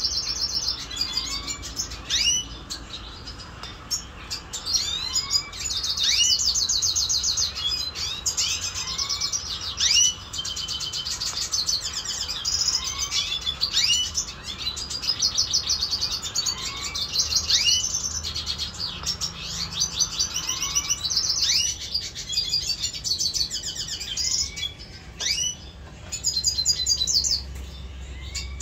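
Caged red siskins singing: fast, high trills alternating with short sweeping chirps, several birds overlapping almost without pause.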